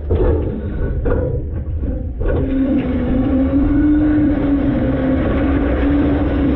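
Front-load garbage truck's engine running, heard from inside the hopper, with a low rumble and a steady whining tone. The tone fades for a moment with a few faint knocks, then comes back strongly about two and a half seconds in.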